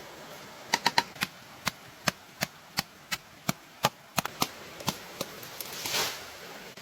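A quick series of sharp knocking strikes, about three a second for some four seconds, like chopping with a blade, followed by a short rustling swish near the end.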